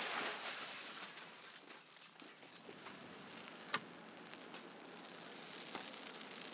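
Burning brush crackling over a steady hiss, with scattered small pops and one sharp pop a little past halfway.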